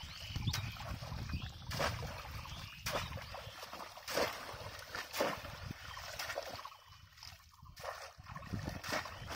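Splashing in shallow muddy water as a person wades and lifts and drops a bamboo cone fish trap (polo), with sharp splashes about once a second and a quieter moment near the end.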